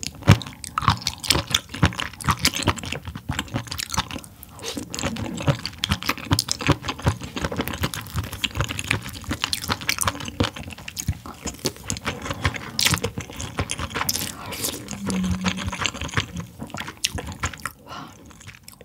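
Close-miked eating: wet chewing and slurping with many quick, irregular mouth clicks.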